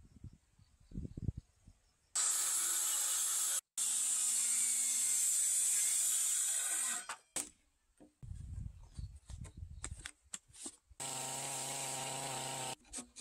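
Makita circular saw running and cutting a row of closely spaced kerfs across a timber beam to rough out a notch for a joint, for about five seconds with a brief break. Scattered knocks and thumps follow, and then a power tool runs steadily for about two seconds near the end.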